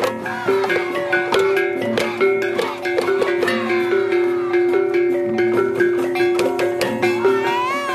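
Music with quick, evenly paced notes of mallet-struck tuned percussion and sharp clicks over a sustained held tone, with a few gliding notes near the end.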